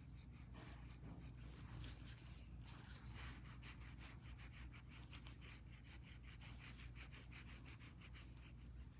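Faint, quick rubbing strokes of an acrylic nail brush working wet acrylic powder over a long artificial nail.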